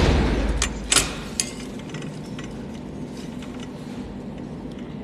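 Small welded wire-mesh piece being handled: a thump at the start, then a few sharp metallic clicks over a faint steady low hum.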